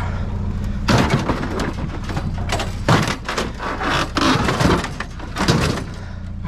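Junk clattering and knocking as it is shifted and rummaged through in a dumpster, with a rapid, uneven run of bangs and scrapes from about a second in until near the end.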